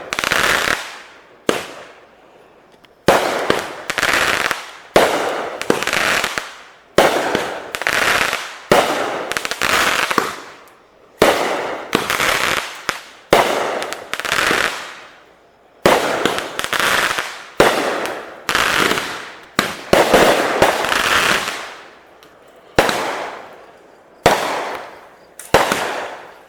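Fireworks going off one after another, roughly one a second. Each starts with a sudden bang and fades away over about a second, with a short lull near the start.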